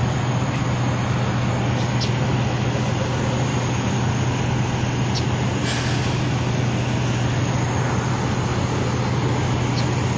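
Steady motor-vehicle and traffic noise: a constant low hum under an even wash of road noise, with a few faint clicks.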